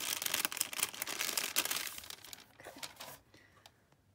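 Thin frosted plastic sleeve crinkling and rustling as a phone case is pulled out of it. The crackle is dense at first and dies away about three seconds in.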